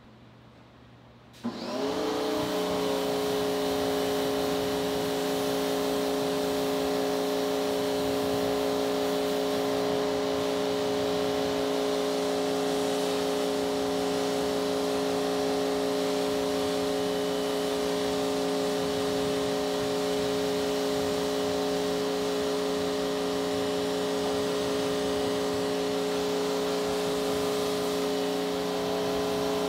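Pressure washer pump kicks on abruptly about a second and a half in and then runs steadily with a hum, over the hiss of its water spray rinsing suds off a car.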